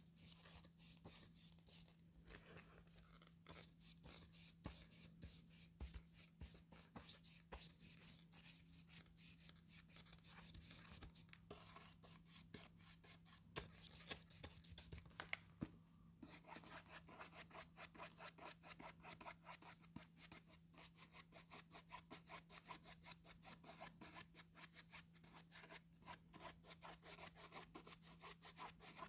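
Comb teeth scraped over calendar paper in rapid, repeated rasping strokes, with a brief pause about halfway through. A faint steady low hum runs underneath.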